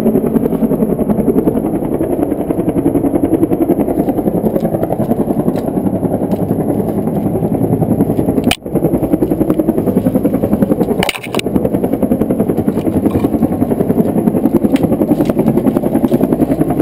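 Helicopter rotor chop, a steady fast throbbing. The sound cuts out briefly with a click twice around the middle.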